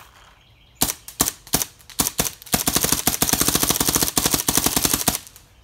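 Planet Eclipse Eclipse Cocker paintball marker firing, freshly rebuilt and shooting well. About a second in come several single shots, then a rapid even string of shots for about two and a half seconds.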